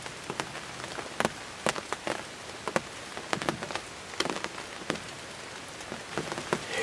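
Rain falling with a steady hiss and irregular sharp taps of drops landing close by, two or three a second.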